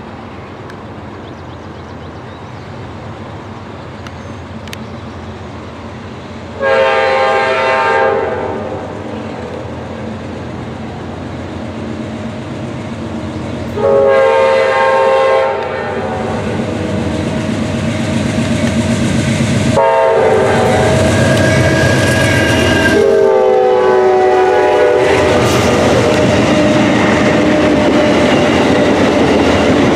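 Amtrak GE P42DC diesel locomotive sounding its air horn in four chord blasts as it approaches: two separate blasts, then two longer ones that run almost together. The train then passes close by, a loud steady rush of diesel engine, wheels and coaches with a clickety-clack over the rail joints.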